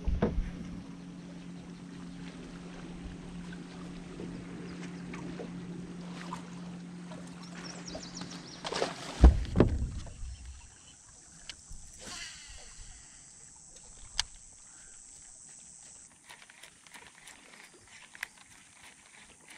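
A bass boat's electric trolling motor hums steadily, then cuts out about nine seconds in with a loud thump. After that it is quieter, with a brief whir about twelve seconds in and a few light clicks from the baitcasting rod and reel.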